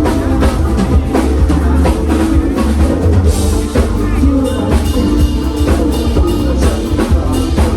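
Live band playing, with drum kit and heavy bass to the fore and no singing in this passage.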